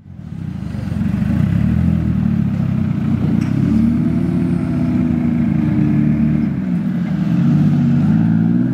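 Classic Datsun Z-car engines running with a low exhaust note that fades in and rises and falls in pitch twice as the cars are driven off slowly.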